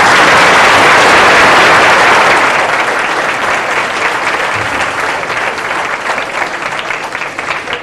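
Audience applause, loudest at the start and easing off over the following seconds.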